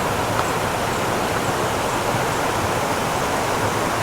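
Steady rush of falling water at a waterfall, an even hiss with no change.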